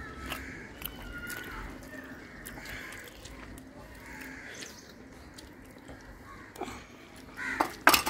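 Crows cawing faintly in the background, then a few sharp clinks of tableware near the end.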